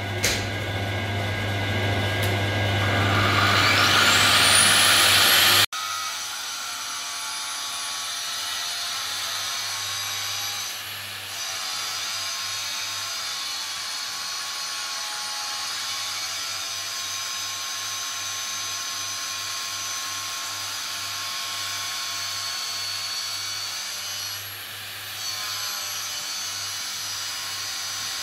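Angle grinder clamped in a lathe's tool post, grinding the face of a turning truck flywheel. Its whine rises in pitch over the first few seconds and breaks off sharply about six seconds in. Steady grinding follows, easing briefly twice.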